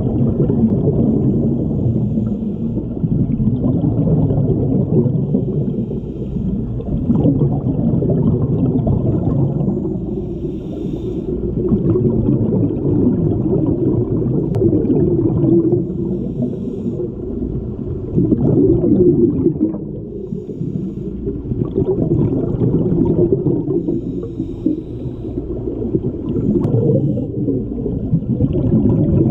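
Scuba diver breathing through a regulator underwater: a low, bubbling rumble of exhaled air that swells and eases every few seconds.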